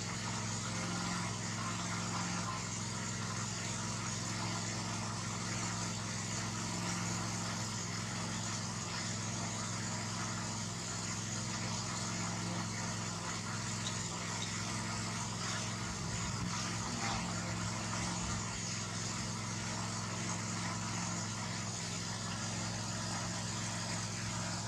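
A steady low mechanical hum with a constant hiss over it, unchanging throughout.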